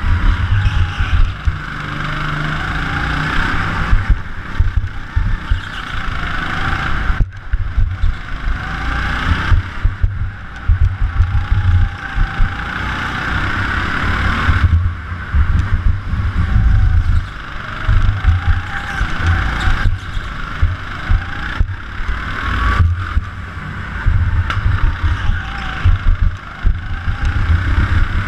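Go-kart engine heard on board, revving up along the straights and dropping off into the corners, over and over, with a heavy low rumble underneath.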